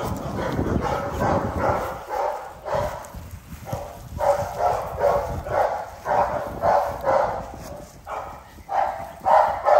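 A dog barking over and over, about two to three barks a second, the barks louder in the second half.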